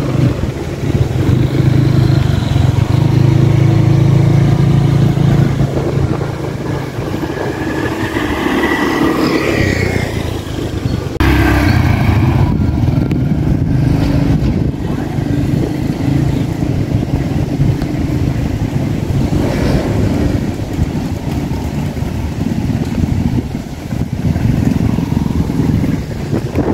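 Road traffic engines, mostly motorcycles, running steadily, with one engine note rising about nine seconds in.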